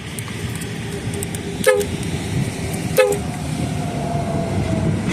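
Steady low rumble of passing traffic with a faint drawn-out tone, and two sharp metallic clanks that ring briefly, about a second and a half apart.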